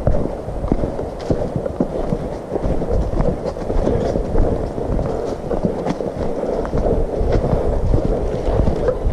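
Footsteps through dry fallen leaves on a forest trail, with irregular sharp taps of trekking poles, over a low rumble on the microphone.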